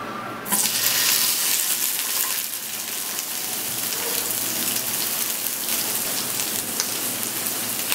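Sliced mushrooms dropped into hot olive oil in a frying pan: a loud sizzle bursts up about half a second in, then settles into steady frying.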